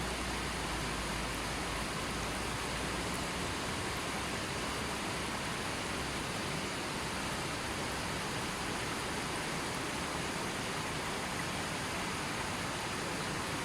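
River water flowing steadily over rocks, a constant rushing hiss with no breaks or single splashes.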